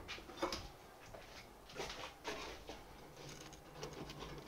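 Faint scattered clicks and rustles of metal tongs and an aluminium foil tray being handled on a gas grill's cooking grate.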